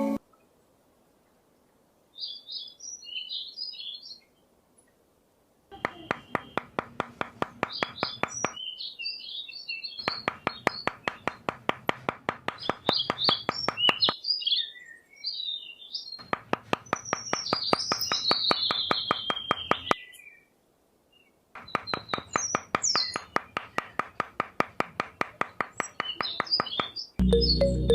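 Birds chirping, with five separate few-second runs of a rapid, evenly pulsing small engine chugging.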